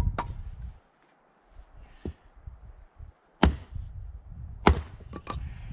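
Axe chopping branches into firewood: separate sharp chops a second or more apart, the two loudest past the middle, with two quick lighter knocks near the end.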